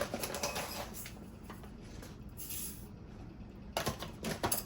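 Dry rice being poured into the cooking pot, a rustling patter of grains, followed by a few sharp clinks and knocks near the end.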